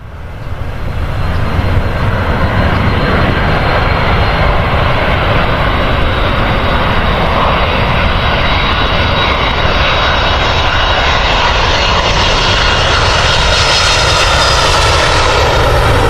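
Airliner's engines running loud and steady, a continuous rushing noise with a thin high whine. The hiss reaches higher toward the end.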